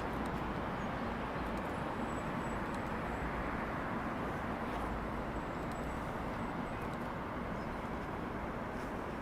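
Steady outdoor ambient noise, an even hiss with no clear single source, with a few faint ticks.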